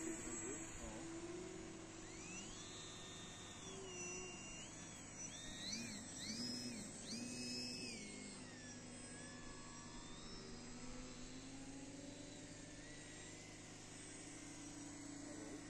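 Faint whine of the electric motors of RC model warplanes in flight. The pitch steps up and down several times between about two and nine seconds in as the throttle changes, then settles to a low, steady hum.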